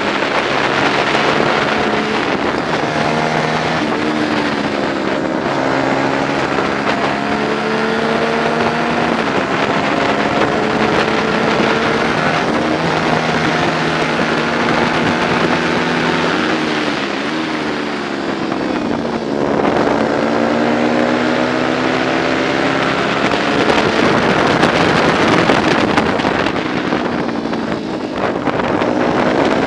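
Onboard sound of a 125 cc four-stroke prototype racing motorcycle engine at race pace. The revs climb and drop back with each gear change, fall away about two-thirds through, then climb again.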